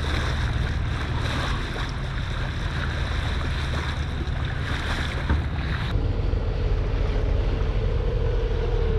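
Boat motor running with wind on the microphone and water washing past the hull. About six seconds in, a faint humming tone joins and drops in pitch near the end.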